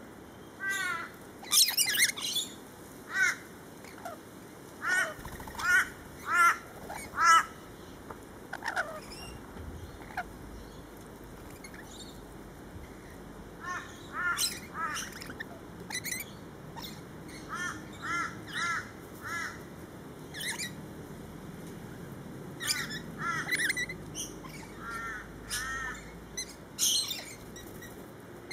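A flock of rainbow lorikeets calling: short, screechy chattering notes, often in quick runs of two to four, with a few harsher, louder screeches among them and a quieter lull near the middle.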